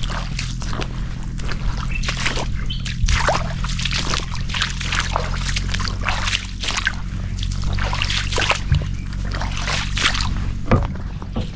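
Footsteps splashing and sloshing through shallow creek water and soft mud, in an irregular run of wet splashes, over a steady low hum.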